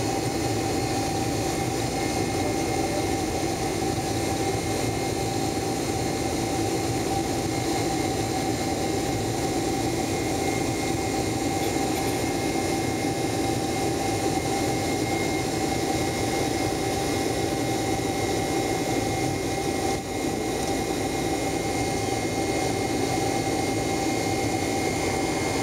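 Cabin noise inside a Boeing 767-300 climbing out after take-off: the jet engines and rushing air make a steady, even drone with a few faint steady whining tones on top.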